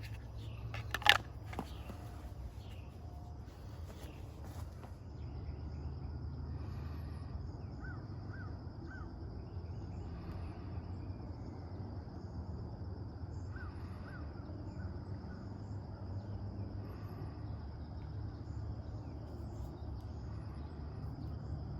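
Quiet outdoor ambience with a steady low rumble, a thin high insect-like drone and a few scattered bird calls. A single sharp click comes about a second in.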